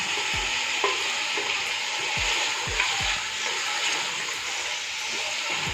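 Mutton pieces sizzling in hot ghee in a clay handi while being stirred with a wooden spoon: a steady frying hiss, with a few low knocks of the spoon against the pot.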